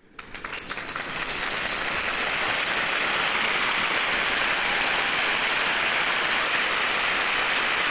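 Crowd applauding: scattered claps at first that quickly thicken into steady, dense applause.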